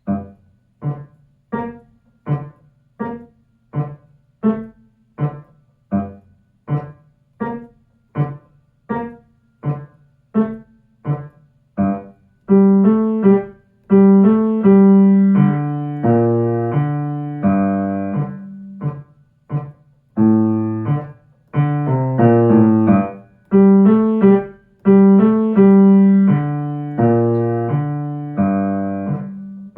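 Piano playing the secondo (lower) part of a duet: short, detached low chords struck about one and a half times a second for the first twelve seconds or so, then louder held chords with moving notes.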